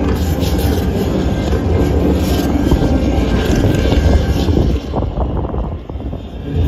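Strong wind buffeting the microphone: a heavy low rumble that eases for a moment near the end before picking up again.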